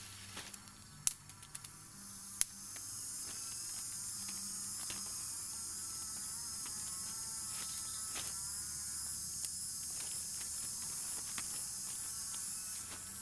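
Insects buzzing in a high, steady chorus that sets in about two and a half seconds in, with a few sharp snaps and rustles before it.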